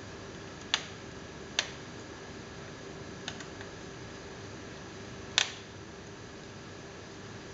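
Sharp, single clicks of a small screwdriver and plastic parts on the opened chassis of a Dell XPS M1730 laptop: three loud ones, the last the loudest, and a fainter one between them, over a steady low hum.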